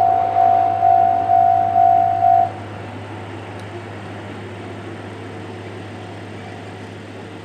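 Japanese railway level-crossing electronic alarm, JR Central-style sound, ringing with a steady repeating electronic ding. It cuts off suddenly about two and a half seconds in, once the train has cleared the crossing. A steady low hum continues after it.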